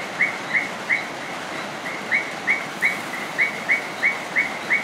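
A bird chirping over and over, short high chirps evenly spaced at about three a second.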